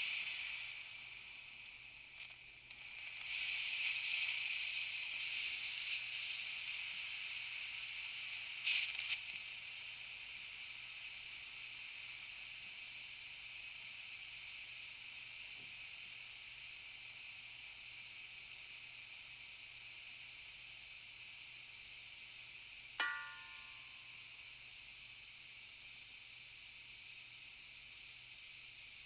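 Steady high hiss of pressurised gas escaping from a leaking tank. It grows louder from about three to six and a half seconds in, surges briefly near nine seconds, and a short ping sounds near twenty-three seconds.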